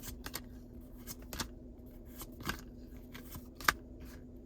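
Pokémon trading cards being handled and flicked through one by one, giving a handful of short sharp card snaps; the loudest comes a little before the end. A faint steady hum sits underneath.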